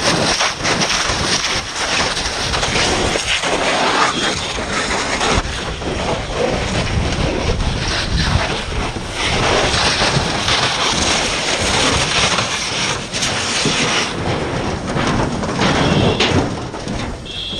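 Fire hose nozzle discharging a stream of water onto burning wreckage: a loud, steady rushing hiss that wavers in loudness as the stream moves.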